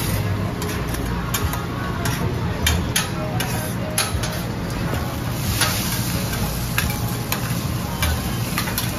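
Steel teppanyaki spatulas striking and scraping on a flat-top griddle as food is turned and chopped: irregular sharp metal clinks, one every second or so, over a steady background noise.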